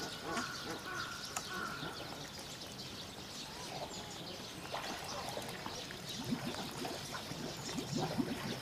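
Pool water lapping and trickling around a wallowing Indian rhinoceros.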